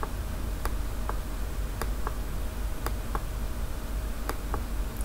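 Computer mouse button clicking, mostly in pairs about a quarter second apart (press and release) as short marks are drawn, a handful of pairs over the few seconds, with a faint steady hum behind.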